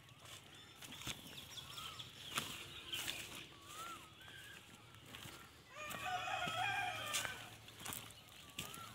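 A rooster crows once, from about six seconds in for a second and a half. Small birds chirp throughout, and footsteps tap through grass.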